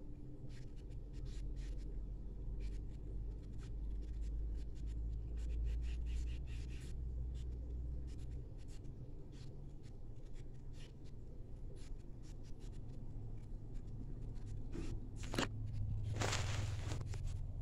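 Handling noise close to a phone's microphone: small scattered clicks and rustles of hands and fabric over a low rumble, then a sharp swish and a longer rubbing noise near the end as the phone is moved.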